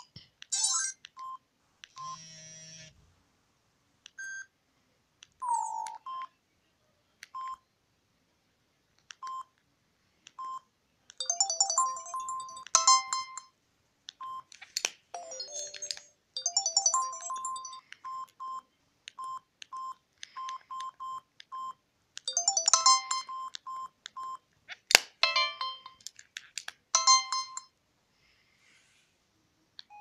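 Samsung SGH-X160 mobile phone playing its short SMS alert tones one after another through its small speaker. Brief chiming melodies are separated by gaps and many short single beeps.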